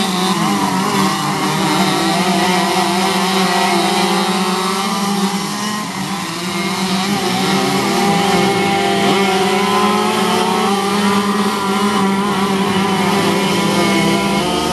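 Several racing go-kart engines buzzing together at full race pace, one steady drone with other engine notes rising and falling in pitch as karts speed up, lift and pass.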